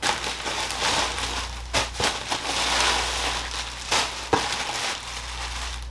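Packaging being torn open and rummaged through by hand: continuous crinkling and crackling with a few sharp snaps, over a steady low hum.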